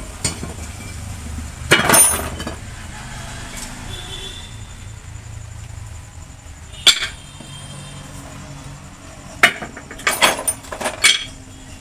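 Metal clinks and knocks of tools and brake parts during a rear brake pad replacement: a cluster about two seconds in, a single sharp one near seven seconds, and a quick run of several near the end, over a low steady hum.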